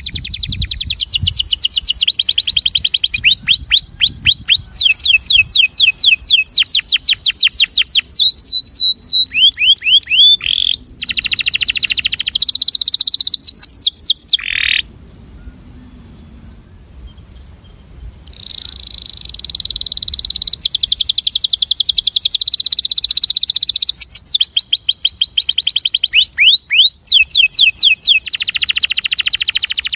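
Male domestic canary singing a breeding male's courtship song: fast rolls of rapidly repeated falling notes and buzzy trills, one phrase after another, with a pause of a few seconds about halfway through.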